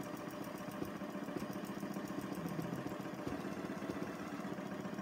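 Janome Memory Craft 6700P computerised sewing machine stitching steadily at speed, a fast even run of needle strokes, during free-motion ruler-foot quilting.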